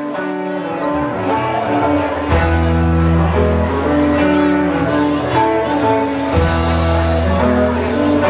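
Live band playing with guitars holding sustained notes; a deep bass comes in about two seconds in.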